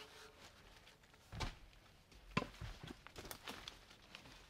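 Quiet footsteps on dry leaf litter and twigs: a few soft thuds with light crackling.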